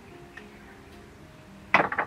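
Background music, and near the end a brief metallic clatter of a thin steel rod being set down between the steel jaws of a bench vise.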